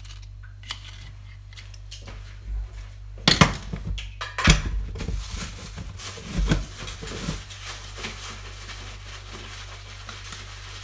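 Oyster shells knocking and clattering against each other and the stainless steel sink, with a few sharp knocks a few seconds in, followed by a knife scraping and prying at an oyster shell during shucking.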